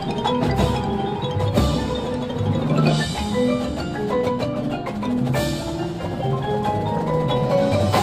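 Drum and bugle corps show music led by mallet percussion: marimbas and other keyboards play quick runs of struck notes, with drum hits underneath.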